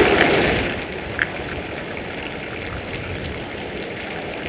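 Steady rushing noise of flowing floodwater in a swollen river. It starts abruptly, is loudest in the first second, and has a brief sharp tick about a second in.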